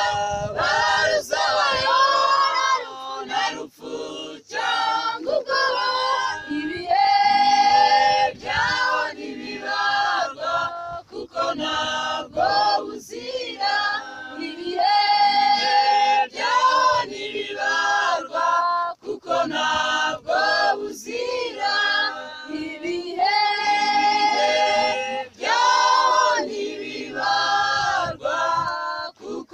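Mixed choir of men and women singing a Kinyarwanda hymn in unison and harmony, in phrases with long held notes.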